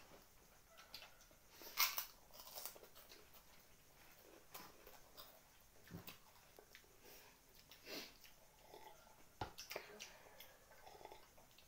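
Quiet eating sounds: chewing and mouth noises with scattered small clicks and taps of fingers and food on plates, the sharpest click about two seconds in.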